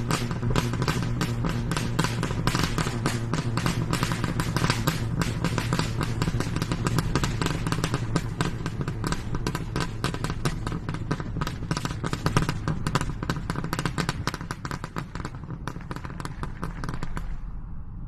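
Rapid, irregular popping and clicking, several pops a second, over a steady low hum. The popping stops about a second before the end while the hum carries on.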